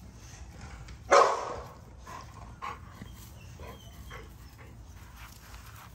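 American bully (XL pitbull) puppies play-fighting with their mother: a dog gives one loud bark about a second in, followed by several short, soft yips and whimpers.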